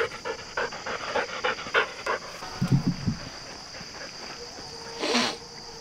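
A dog panting rapidly close by, about four breaths a second, fading out about two seconds in. A steady high insect drone runs underneath.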